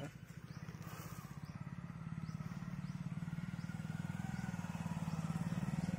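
A low, steady engine-like drone with a fast pulsing beat, growing slowly louder.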